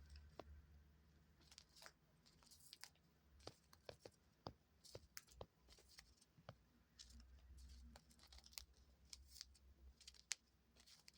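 Faint, irregular rustling and small clicks of a dove preening, drawing its feathers through its beak, with a low room hum underneath.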